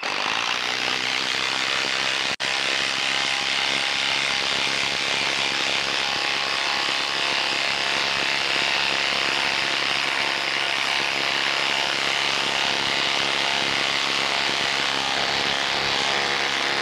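Bosch Freak cordless impact driver hammering steadily as it drives a 6-inch lag screw into a wooden log under heavy load, breaking off for an instant about two seconds in.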